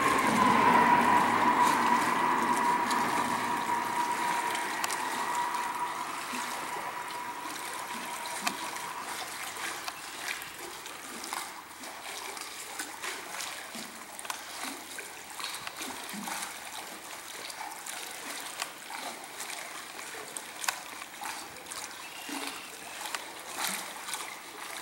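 A ringing tone, loudest at the start and fading away over about nine seconds over a rush of noise. After it, river water laps and splashes lightly against concrete with small irregular ticks.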